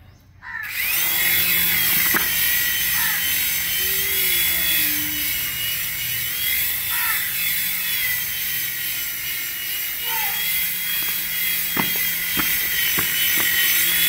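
Coaxial toy RC helicopter's small electric motors spinning up about half a second in, then a steady high whine and rotor whoosh, the whine rising and falling in pitch. A few sharp ticks near the end.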